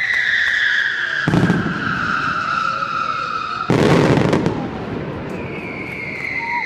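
Fireworks display: a long whistle slowly falling in pitch, cut across by a sharp bang about a second in and a louder, longer burst near four seconds; a second falling whistle begins near the end.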